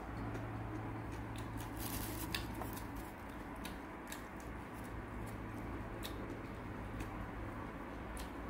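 Wooden chopsticks clicking and tapping against a plate and the food as a slice of gimbap is picked up: a handful of sharp clicks, clustered about two seconds in, over a steady low hum.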